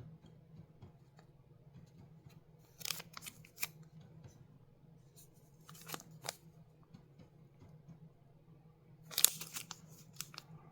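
Small stones and their plastic bags being handled: a few short clicks and crinkles, loudest about nine seconds in, over a faint steady low hum.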